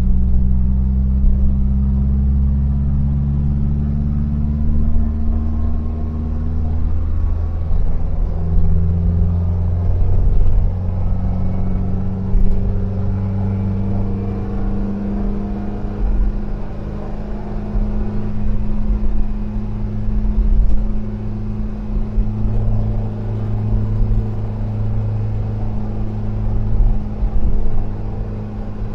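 1973 VW Devon camper van's freshly rebuilt air-cooled flat-four engine running under load at road speed, a steady drone whose pitch wavers slightly in the first several seconds and then holds even.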